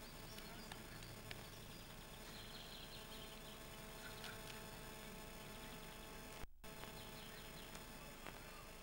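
Faint outdoor ambience: a steady low hiss with a few faint bird chirps and light ticks. The sound drops out completely for a moment about six and a half seconds in.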